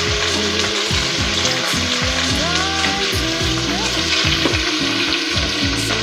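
Food frying in a hot pan, a steady, dense sizzle, with soft background music underneath.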